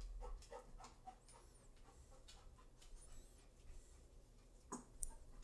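Faint high squeaky whimpers from Old English Sheepdog puppies, two or three times, with light ticks of paws on a tile floor and one sharper tap near the end.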